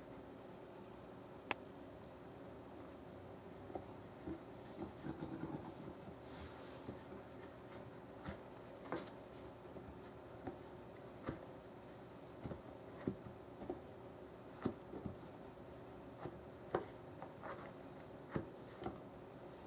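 Siamese cat pawing and scratching at an empty cardboard cigarette-tube box: scattered light taps and scrapes, with a brief stretch of rustling about four to six seconds in. A faint steady hum runs underneath.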